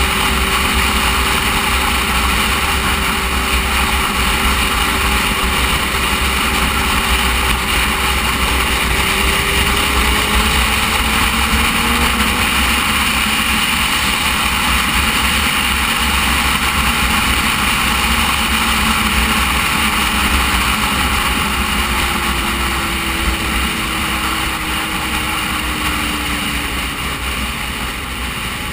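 Motorcycle riding along a road, heard from a camera mounted on the bike: a steady engine note under heavy wind rumble on the microphone. The engine pitch rises a little partway through and falls later, and the whole sound eases off near the end as the bike slows.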